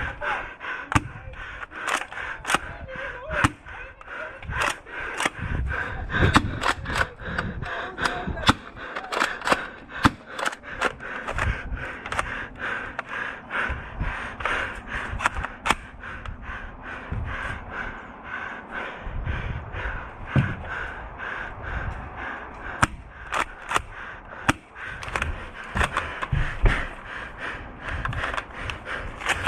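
Airsoft guns firing: scattered sharp pops, at times several a second, thinning out after the middle. Underneath are low thuds and rustling from a player on the move.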